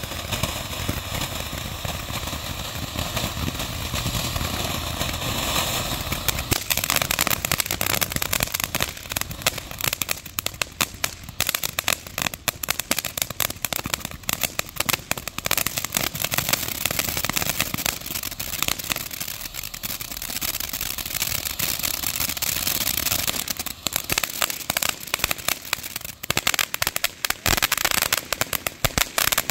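Ground fountain fireworks spraying sparks: a steady hissing rush, which about six seconds in turns to dense, rapid crackling that goes on for most of the rest, with a short return to steady hiss near the end.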